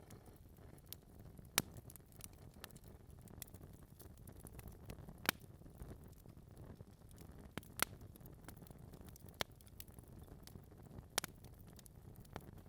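Wood fire burning in a fireplace: a soft low rumble of flame with sparse sharp crackles and pops from the logs, four or five of them standing out.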